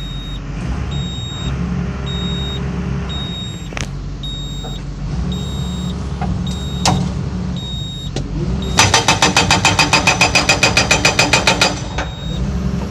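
Excavator engine running steadily with a faint repeated beep; about nine seconds in, the hydraulic breaker hammer fires a rapid run of blows, about seven a second, for about three seconds. The hammer works again after a nitrogen recharge and adjustment, but the operator finds it still weak and slow.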